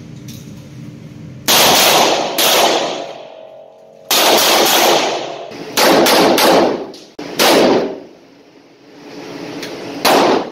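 Revolver gunshots, about eight, fired singly and in quick pairs, each followed by a short echoing decay.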